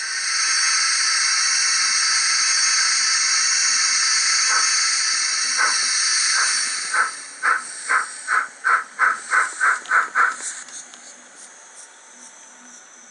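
Steam locomotive sound effects from a Zimo sound decoder, played through a model locomotive's small speaker: a long steady hiss of steam, then a run of about a dozen sharp exhaust beats that come faster and faster and stop suddenly.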